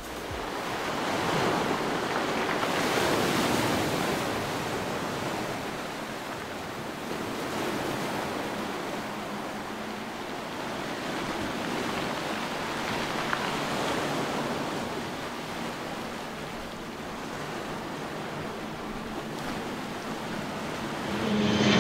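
Sea surf washing in over a pebble and boulder shore, the noise swelling and easing every few seconds. Right at the end the drone of an approaching propeller aircraft begins to rise.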